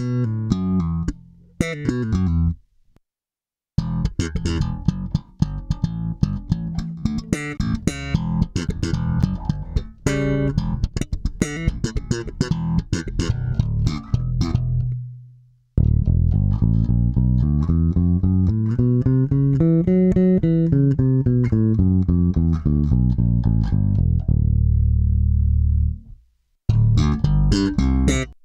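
Five-string electric bass playing a looped phrase through a ZOOM MS-60B 160COMP compressor pedal: a choppy run of short, percussive plucked notes. From about halfway the same phrase plays through an Origin Effects Cali76-TX compressor, as held notes climbing and falling in pitch and ending on a long low note.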